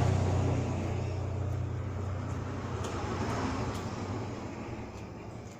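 A motor vehicle passing close by and moving away: a low engine rumble, loudest at the start and dying down over the next few seconds.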